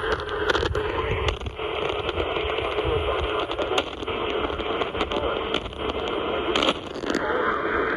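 Radio static: a steady hiss full of crackles and clicks from a receiver picking up no clear programme, its tone shifting about seven seconds in.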